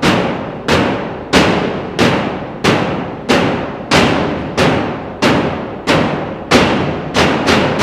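Soundtrack percussion: heavy drum strikes in a steady pulse, about three every two seconds, each ringing out before the next, coming faster near the end.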